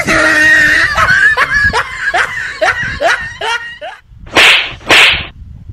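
Young men laughing hard in short repeated bursts while playing a hitting game, after a loud held voice at the start. Near the end come two short hissing whooshes in quick succession.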